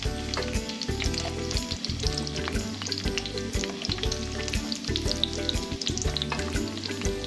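Onion pieces sizzling and crackling in hot oil in a clay pot, with background music underneath.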